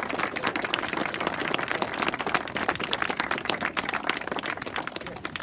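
A small group applauding, with many overlapping hand claps that thin out and stop near the end.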